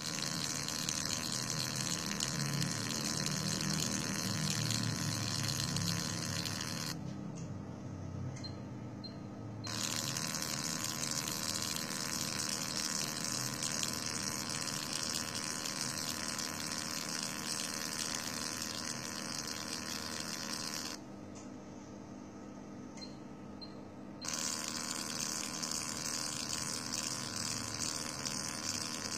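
Fractional CO2 laser machine running as its handpiece works across the skin: a steady high hiss that cuts out twice for about three seconds each time.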